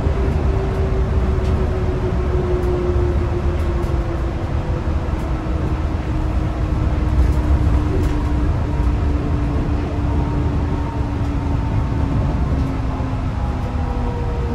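Yurikamome rubber-tyred automated train heard from inside the car: a steady low running rumble, with the traction motor's whine falling slowly in pitch as the train decelerates.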